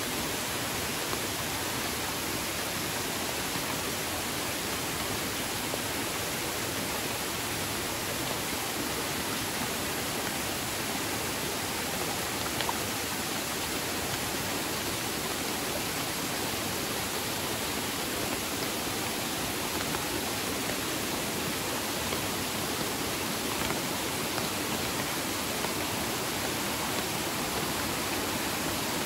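Steady rushing of a small waterfall and the fast, muddy, rain-swollen river it pours into, running high and close to flooding.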